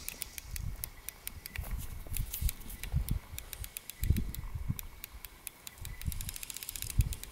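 Fly reel's click-and-pawl ratchet ticking in irregular runs as the spool turns, with a low, uneven rumble of handling or wind underneath.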